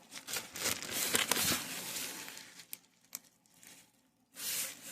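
Rustling and crinkling of boxes and packaging being handled while rummaging, with a couple of sharp clicks about three seconds in, a short pause, then another brief burst of rustling near the end.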